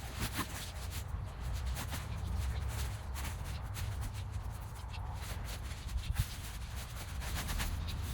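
Rustling and handling of a nylon dome tent with scattered light knocks and clicks as it is pitched, over a steady low rumble.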